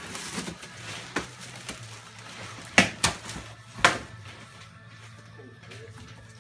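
Handling of a large wrapped cardboard gift box: rustling with three sharp knocks near the middle as the box is worked open.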